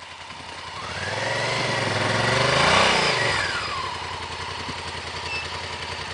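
Twin-cylinder adventure motorcycle going past: its engine note rises, is loudest about three seconds in, then falls away. A steady engine hum runs underneath.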